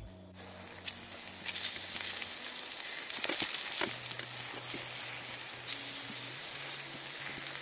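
Eggplant slices sizzling steadily in sunflower oil in a frying pan, being fried golden on both sides. A few short clicks come from the utensil as slices are turned over.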